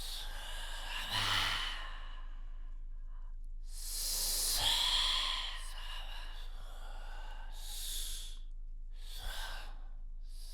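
Ocean waves imitated with the human voice: breathy, hissing swells that rise and fall away, four in all, the longest and loudest about four seconds in.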